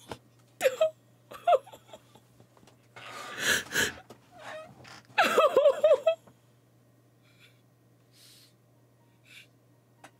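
A woman crying without words: short whimpers, a long shaky breath, then a run of wavering sobs about five seconds in, after which only faint breaths are heard.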